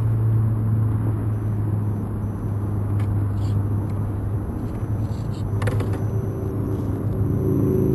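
Electric motor and geared drivetrain of an Axial Trail Honcho RC rock crawler running steadily under load as it crawls over rocks, with a couple of sharp clicks about three and six seconds in.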